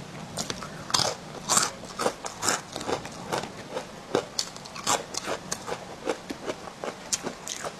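Crunchy rice-crust chips (guoba) being bitten and chewed: an irregular run of crisp crunches, two or three a second.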